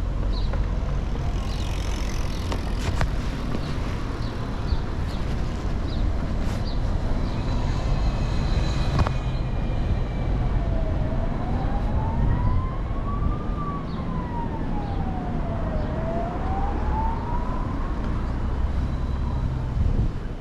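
Emergency vehicle siren wailing, sliding slowly up and down in pitch, starting about halfway through and fading near the end, over a steady low rumble.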